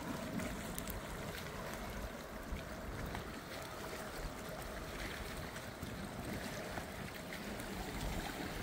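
Steady outdoor ambience of wind and river water: an even hiss over a low rumble, with no distinct events.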